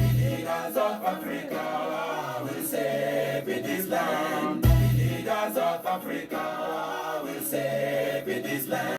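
Music: several voices singing together in harmony without clear words, with a deep bass hit about five seconds in.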